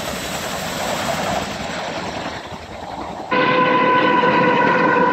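A steady rush of helicopter noise from a low-flying CH-47 Chinook tandem-rotor helicopter. About three seconds in, this cuts to a Pacific National diesel freight locomotive's air horn sounding one long, loud blast.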